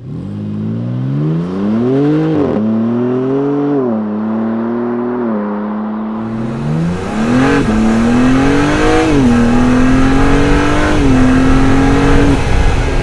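BMW G87 M2's S58 3-litre twin-turbocharged straight-six accelerating hard. The engine note climbs and drops back again and again as it shifts up through the gears, with a few short stretches of steady pull between.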